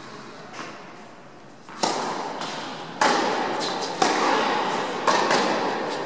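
Tennis rally on an indoor court: sharp ball strikes and bounces, starting about two seconds in and coming about once a second, each one ringing on in the large hall.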